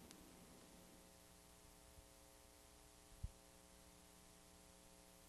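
Near silence: a faint steady electrical hum, with one short low thump a little over three seconds in.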